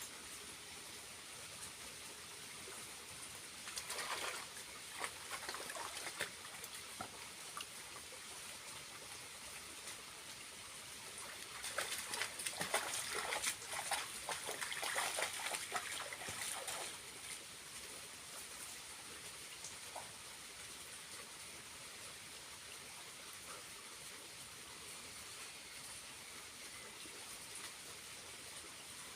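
Small waterfall trickling with a low flow of water, a steady hiss. Two stretches of louder splashing break in, a short one about four seconds in and a longer one from about twelve to seventeen seconds.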